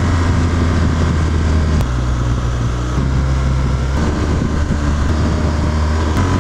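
BMW R1200GS flat-twin boxer engine running at road speed, heard from the rider's seat with wind rushing over the microphone. Its note shifts in pitch a few times, about two seconds in and again around four and six seconds in.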